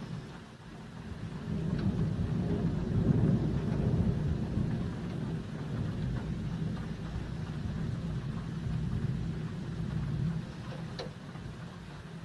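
Thunder rumbling: a deep roll that builds about a second and a half in, stays strong for several seconds and fades near the end.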